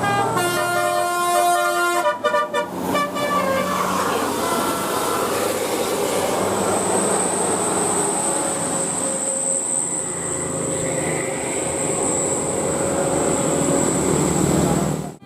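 Bus 'telolet' musical air horn playing a quick tune of short stepped notes for about the first two seconds, then the bus's engine and road noise running on, with a steady very high-pitched tone through the second half.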